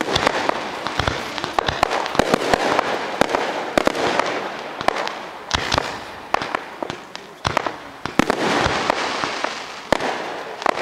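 Professional fireworks display firing in rapid succession: many sharp bangs and cracks, several a second, over a steady rushing noise that swells and fades in waves.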